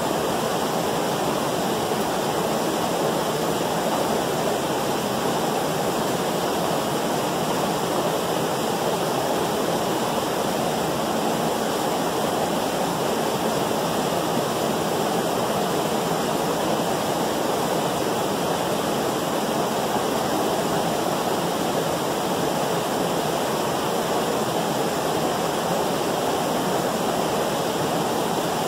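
Steady, even rush of water from a creek waterfall in a rocky canyon.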